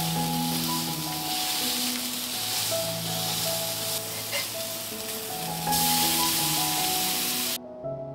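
A smashed ground-beef burger patty sizzling in a hot cast-iron skillet, with a steady hissing that swells for a moment, then cuts off suddenly near the end. Background music with sustained keyboard-like notes plays throughout.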